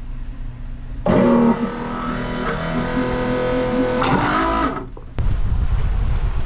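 Low steady rumble, then about four seconds of electric guitar rock music starting about a second in. It cuts off near the five-second mark to loud wind buffeting the microphone over the wash of water from a boat underway.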